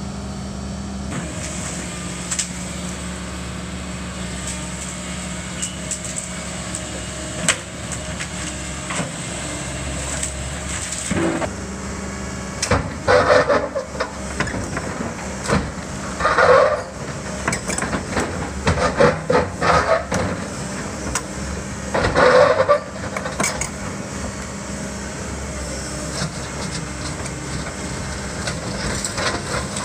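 Mini excavator's diesel engine running steadily while its bucket tears into a building. From a little before halfway, several loud bursts of cracking and crashing as pieces of the structure break and fall.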